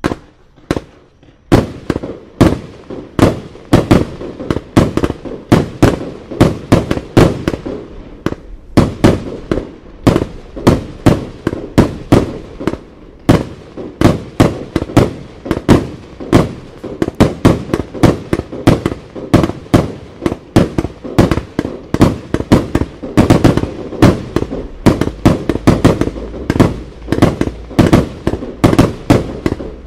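Red Wire Ghost Machine 108-shot compound firework cake firing: a rapid, unbroken barrage of launches and bursts, about three shots a second, starting about a second and a half in.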